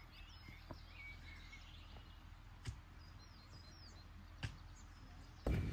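Faint outdoor background with small birds chirping now and then and three soft knocks, about two seconds apart. A louder rush of noise starts suddenly just before the end.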